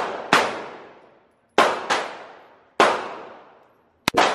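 Semi-automatic handgun firing about six shots at an irregular pace, some in quick pairs. Each sharp crack rings out in the echo of an indoor shooting range.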